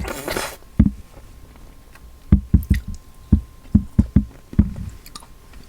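Close-miked chewing of soft durian flesh: wet, squishy mouth sounds in irregular clusters, after a brief breathy hiss at the start.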